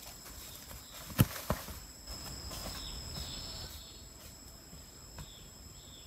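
A length of green bamboo dropped onto the forest floor, landing with a sharp knock about a second in and a second smaller knock as it bounces just after. Insects keep up a steady high-pitched buzz throughout, and footsteps rustle through dry leaves.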